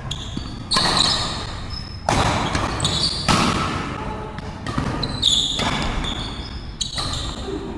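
Badminton rally: a series of sharp racket hits on the shuttlecock, roughly one every second to second and a half, with short squeaks of shoes on the court between them, echoing in a hall.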